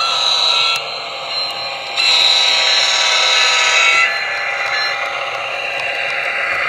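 Train horn sounding near a grade crossing: a short blast at the start, then a longer blast about two seconds in. After that comes the steady running sound of the passing train.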